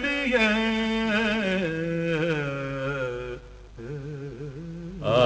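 A man chanting an Urdu naat without instruments, drawing out the end of a phrase in one long melodic line that wavers and steps down in pitch. Near the end it gives way to a softer, quieter wavering line.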